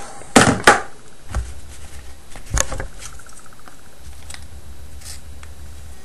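A few light clicks and taps as the phone and small repair tools are handled, most in the first three seconds, over a faint low hum.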